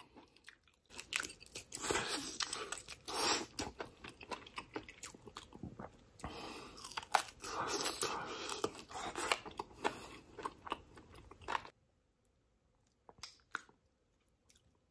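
Close-up biting and chewing of marinated Korean short rib, a dense run of small mouth clicks. It stops suddenly about twelve seconds in, leaving only a few faint clicks.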